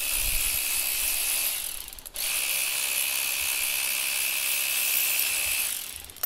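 A power ratchet runs continuously, spinning the forcing screw of a harmonic balancer puller out of the pulled balancer. It makes a steady whir with a high whine, in two long runs with a brief pause about two seconds in.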